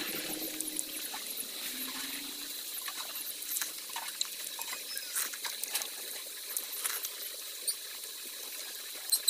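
Close-up wet chewing of ripe pineapple: irregular juicy smacking and clicking of the mouth.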